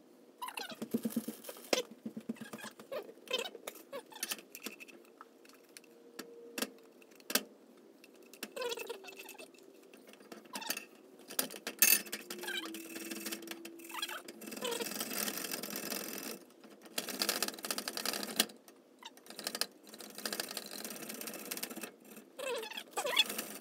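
Fresh ginger root being grated on a metal box grater standing in a stainless steel saucepan: bursts of quick rasping strokes with pauses between them, and a few sharp clicks of metal on metal.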